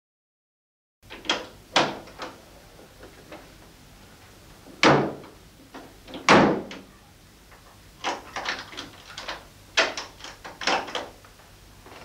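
After a second of silence, a door is worked: sharp clicks and knocks, two louder bangs about five and six seconds in, then clusters of quick knocks and clicks.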